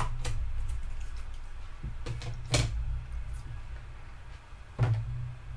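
Small plastic containers being handled inside a plastic storage tub: a few sharp plastic knocks and clicks, the loudest about two and a half seconds in and another near the end, over a steady low hum.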